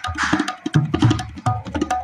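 Tabla played fast in a rau passage: a dense stream of quick strokes, with the dayan ringing at a clear pitch over deep, booming strokes on the bayan, and a brief brushing hiss on the drumhead early on.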